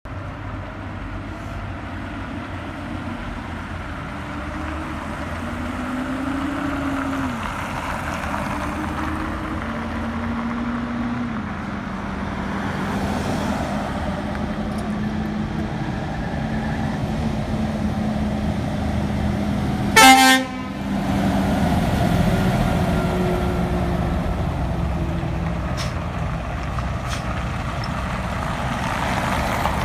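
Scania R580 truck's horn giving one short, loud blast about twenty seconds in, over steady heavy-vehicle engine and road noise whose pitch climbs several times in the first half.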